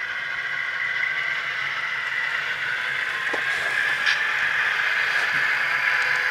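SoundTraxx Tsunami sound decoder in an HO-scale Proto 2000 E8 model locomotive playing its twin EMD 567 diesel engine sound through the model's small speaker, steady and slowly growing louder as the model runs past. A few faint clicks sound in the second half.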